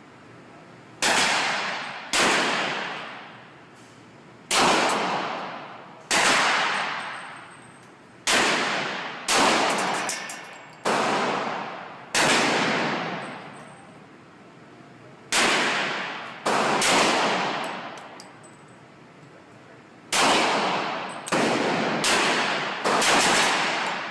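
Glock 35 pistol in .40 S&W fired in slow single shots, about fifteen in all, each shot echoing with a long fading tail. The shots come at uneven gaps of one to three seconds, with a quicker string of shots near the end.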